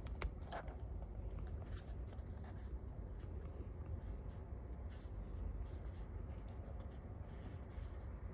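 Brush pen tip scratching and brushing on sketchbook paper in short, scattered strokes, over a steady low rumble.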